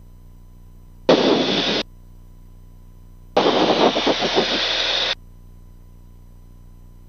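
Aircraft radio/intercom audio feed: two bursts of harsh static-like noise that switch on and off sharply. The first, under a second long, comes about a second in; the second, nearly two seconds long, comes about halfway through.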